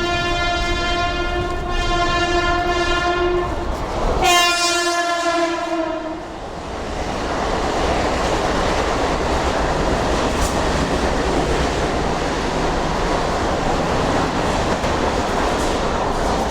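Express train running through a station: its horn blows a long note, breaks briefly about four seconds in, sounds again lower in pitch as the locomotive passes, and stops about six seconds in. Then comes the steady rush and clatter of the carriages going by at speed.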